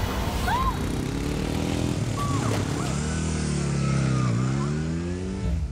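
Cruiser motorcycle engine revving hard as the bike rides past. Its pitch drops and climbs again about four seconds in.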